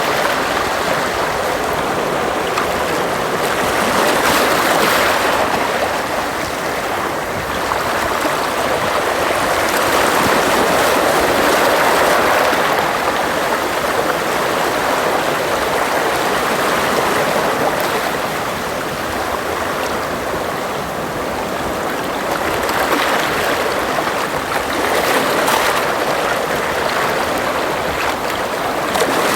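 Sea waves washing onto the shore: a continuous rush of water that swells and eases every few seconds.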